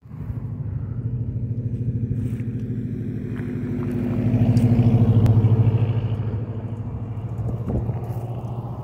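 A motor vehicle engine running at a steady pitch, a low hum with a fast pulse. It swells louder about halfway through and eases off again.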